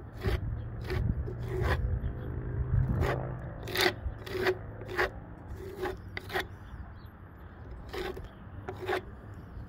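Wide flexible putty knife scraping elastomeric patching compound across rough, weathered wood fascia board. It goes in a series of short, sharp strokes, irregularly spaced, with a longer pause about seven seconds in.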